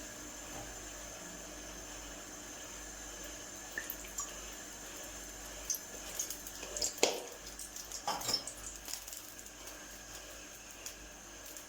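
Water running from a tap into a sink, with a few light clinks and knocks about six to nine seconds in.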